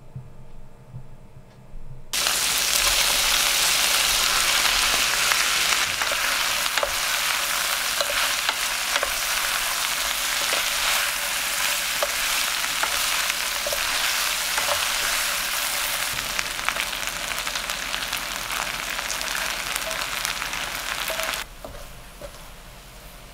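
Gnocchi, sliced chorizo and peppers sizzling in hot oil in a stainless steel frying pan while a wooden spoon stirs them, with small taps and scrapes of the spoon against the pan. The loud sizzle starts suddenly about two seconds in and falls to a much quieter sizzle near the end.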